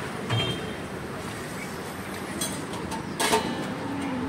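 Steady background street noise with a dull knock just after the start. About three seconds in comes a louder, ringing metal clank of a utensil striking a dosa griddle.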